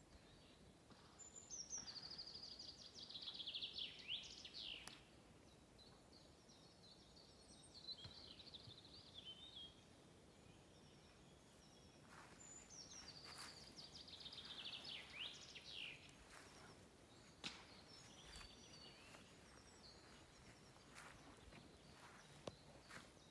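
Faint songbird singing: three phrases, each a quick run of notes falling in pitch over two to three seconds, over quiet outdoor background. A few light clicks follow in the second half.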